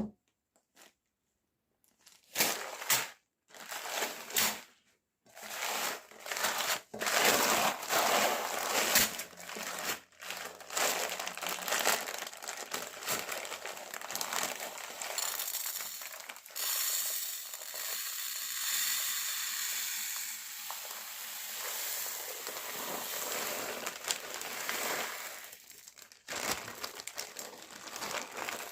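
Small hard candies crunching and crackling as a meat grinder crushes them: a few separate cracks after a quiet start, then a dense, continuous crunching.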